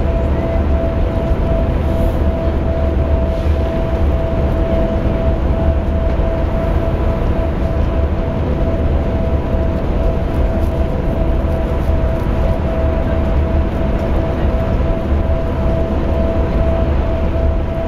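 Cabin noise inside a moving bus: a steady low engine and road rumble with a constant whine above it.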